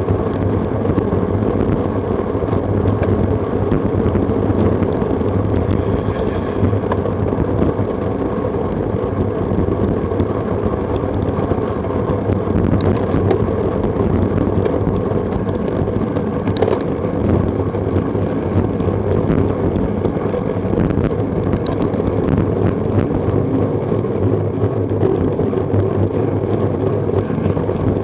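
Steady rush of wind and road noise on the microphone of an action camera mounted on a moving road bicycle.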